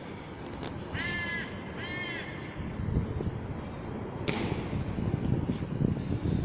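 A crow cawing twice, two short calls about a second apart, over a low rumble, with a sharp click about four seconds in.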